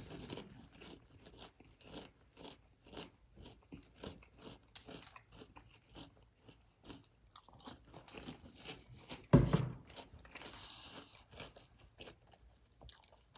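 A person chewing and crunching Sour Patch Kids cereal in a run of short crunches. A single louder thump comes about nine seconds in.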